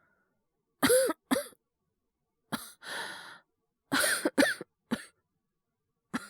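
A man coughing hard in short bouts, about seven coughs in all, with a rasping breath drawn between the bouts. It is an acted cough for a character sick with a cold and fever.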